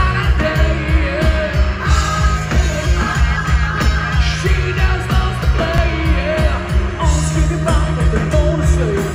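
Live rock band playing with a steady drum beat and bass, with gliding melodic lines over the top.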